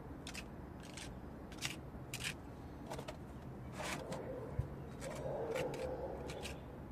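Small metal spatula scraping wet plaster mortar onto a rough wall in short, repeated strokes. In the middle comes a longer, softer scraping as mortar is scooped from the bowl.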